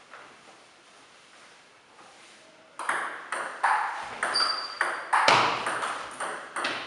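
Table tennis rally: the ball clicking off the table and the bats in turn, two to three sharp hits a second, each with a short echo. It starts about three seconds in, after a quiet pause between points.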